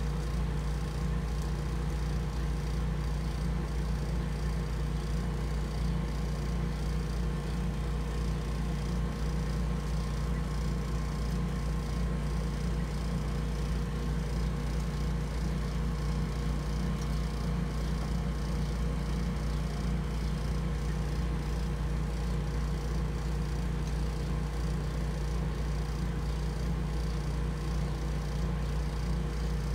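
Steady, even machine hum, heaviest in the low end, with a couple of faint steady tones above it; it does not change.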